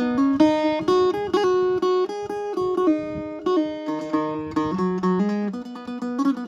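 Three-string acoustic Thai phin (Isan lute) played by plucking: a quick melody of short notes over a held low drone note.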